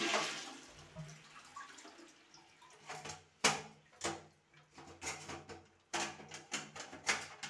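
Flush water from a concealed-cistern toilet running and fading out over the first second or so. Then a series of sharp clicks and knocks, about eight, as the push-button flush plate is pressed and snapped into its wall frame.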